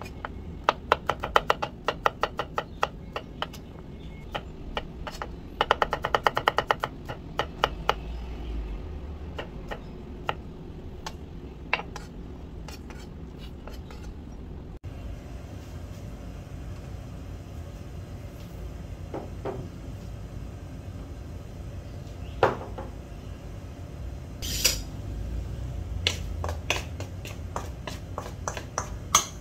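Chef's knife slicing garlic cloves on an end-grain wooden cutting board: sharp taps of the blade on the board, in quick runs through the first twelve seconds or so. After that, only a few scattered taps and clinks.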